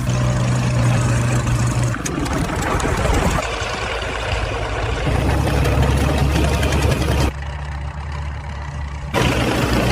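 An engine running steadily with a low, even hum, its pitch and loudness shifting abruptly a few times.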